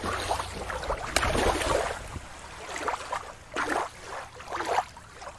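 Water lapping at a river's edge with a low wind rumble on the microphone; about two seconds in the sound changes to a few short, separate bursts of water noise.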